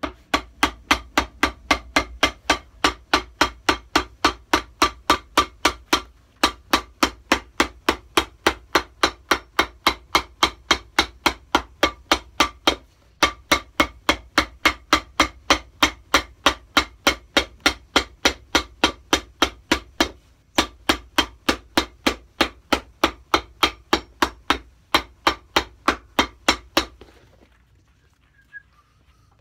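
A cobbler's hammer pounding on a shoe in a steady run of sharp, ringing blows, about three a second, with brief pauses every several seconds, stopping near the end.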